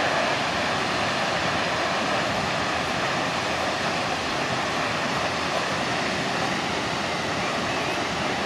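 Tall waterfall falling in two streams down a rock cliff: a steady rush of falling water.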